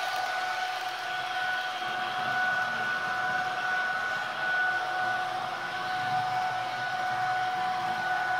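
Sound decoder in an H0 model Taurus electric locomotive playing its running sound: a steady high electric whine over a hiss. The whine eases slightly in the middle.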